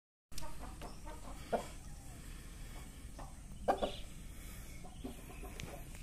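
Aseel rooster giving a few short, separate clucks, the loudest a little before four seconds in.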